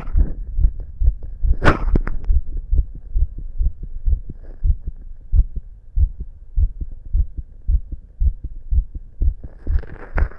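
A man's heartbeat, fast and regular: a steady train of low thumps. A single sharp knock comes about two seconds in, and a hiss builds near the end.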